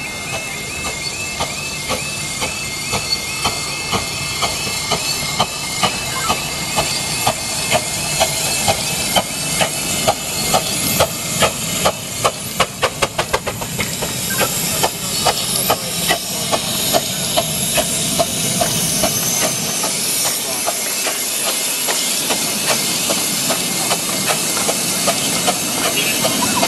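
A 15-inch-gauge Romney, Hythe and Dymchurch Railway steam locomotive passes over a level crossing with its train, hissing steam, its wheels clicking rapidly over the rail joints, thickest about halfway through. For roughly the first half, the crossing's two-tone warning alarm repeats steadily over it.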